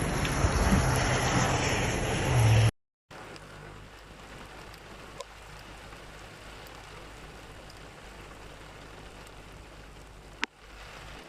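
Steady rush of heavy rain and running water. For the first few seconds it is loud, with a low steady hum beneath it. After a cut it becomes a quieter, even wash, with one sharp click near the end.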